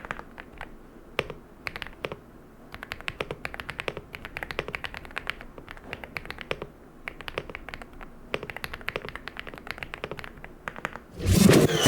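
Typing on a Leobog Hi86 aluminium mechanical keyboard with its stock Leobog Rambo switches: uneven keystroke clicks, some in quick runs and some spaced apart. Near the end, loud music cuts in over the typing.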